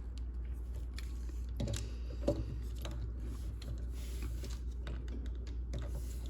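Scattered light clicks and taps of hard plastic as a Transformers Armada Optimus Prime action figure is handled and its gun is fitted into its hand, over a steady low hum.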